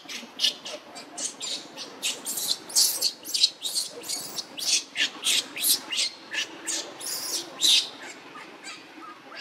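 Newborn macaque crying: a rapid run of short, high-pitched squeals, about two or three a second, calling for its mother.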